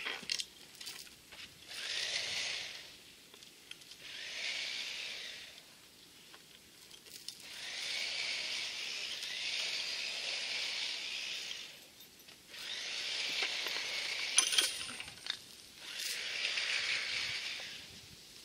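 Rebar scraping through the soil as it is levered out with a chain-and-wooden-lever puller: five bouts of gritty, hissing scrape a few seconds apart, one per pull, with a few sharp metallic clicks about two thirds through.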